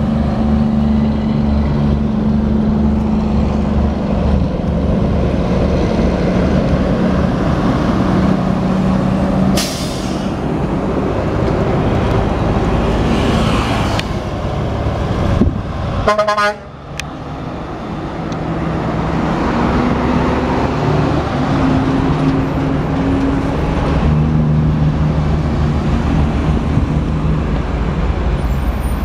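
Heavy diesel tractor-trailer trucks running under load on a steep road, their engines a steady low drone that shifts in pitch as they pass. A short hiss comes about ten seconds in, and the sound breaks off briefly about halfway before another truck's engine takes over.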